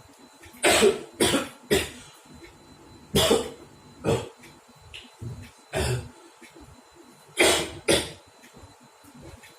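A person coughing hard and repeatedly, about eight harsh coughs in groups of two or three. The coughing is faked as a prank.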